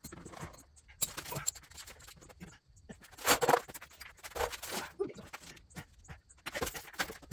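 Hand tools scraping, clicking and knocking against the ATV's parts in irregular bursts, loudest about three and a half seconds in.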